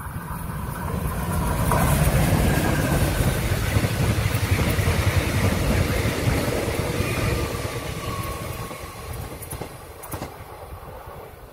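Locomotive-hauled Mugunghwa-ho passenger train passing close by: the rumble of the engine and wheels on the rails builds over the first two seconds, stays loud for several seconds as the coaches go past, then fades as the train moves away.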